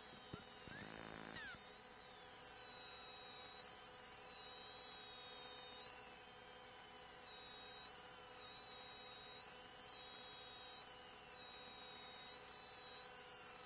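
Faint steady electronic hum with thin high whistling tones that drift slowly up and down, and a brief burst of sweeping chirps about a second in.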